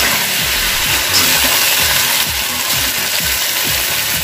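Hakka noodles sizzling in an aluminium kadhai over a high gas flame while being stir-fried, with quick repeated scrapes of the utensil against the pan over a steady hiss.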